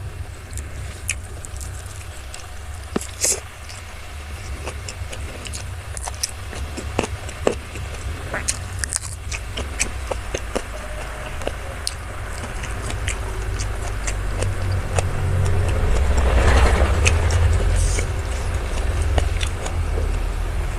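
Close-miked eating: chewing with scattered sharp clicks and scrapes of a meal being eaten. Under it a steady low engine rumble of passing traffic, which grows louder about three quarters of the way through and then eases a little.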